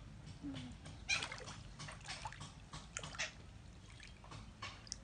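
Water in a paddling pool sloshing and splashing as a hand moves through it, in irregular splashes, the loudest about a second in and around three seconds.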